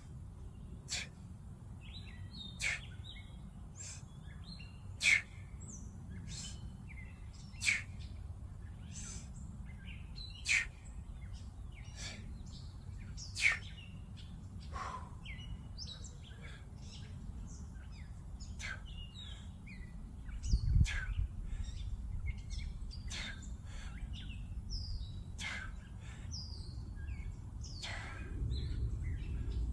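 Songbirds chirping and calling outdoors, many short calls overlapping, with one louder sharp call repeating every two to three seconds in the first half. A low rumble lies underneath and swells about two-thirds of the way in and again near the end.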